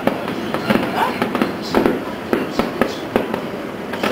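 Aerial fireworks display bursting: a rapid, irregular run of bangs and pops, several a second.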